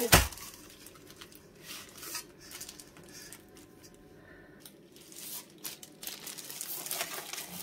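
Plastic bag crinkling and rustling in short bursts as the bagged dough is handled and set into a metal steamer tray, with a sharp knock right at the start.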